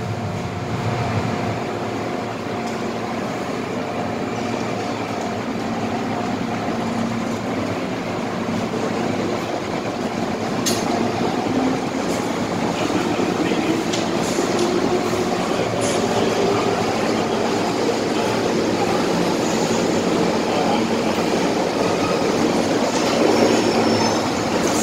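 Inside the passenger car of an MTR M-Train (Metro-Cammell EMU) in motion: steady running noise of wheels and motors, with a faint motor hum at first and a few sharp clicks around the middle.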